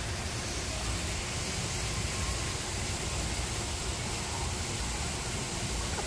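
Steady hissing background noise with a fluttering low rumble; no bird calls stand out.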